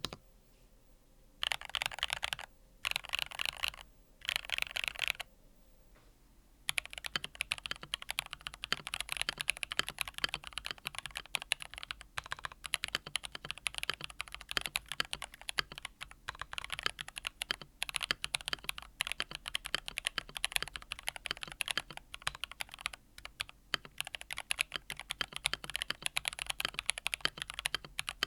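Typing on a NuPhy Field75 mechanical keyboard with NuPhy Fleeting Gold switches: three short bursts of rapid keystrokes with pauses between them, then continuous fast typing from about seven seconds in.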